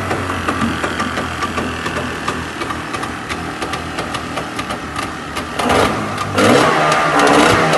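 A 50 hp engine running steadily, then revved up in two louder surges near the end. The owner says it goes weak right after being revved hard.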